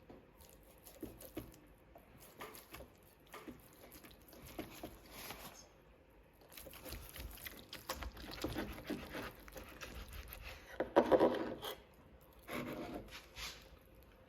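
Wet, squishy sounds of tender barbecued beef ribs being handled: a string of short soft sounds, with a louder burst about eleven seconds in.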